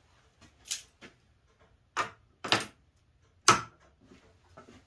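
A few sharp, separate knocks and clicks as a clamp and a plastic drilling jig are set against a wooden drawer face and clamped down. The loudest knock comes about three and a half seconds in.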